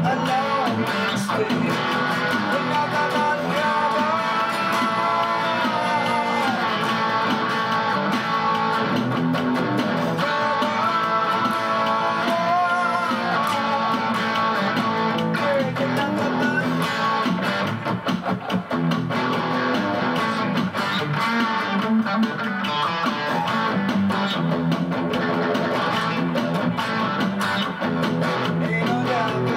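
Instrumental break of a guitar-based song: a lead guitar plays a melody with notes that slide in pitch, over strummed guitar backing.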